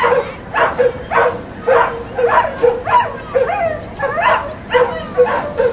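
Greyhounds shut in the starting boxes yelping and whining, short high calls about twice a second: the dogs' excitement just before the race starts.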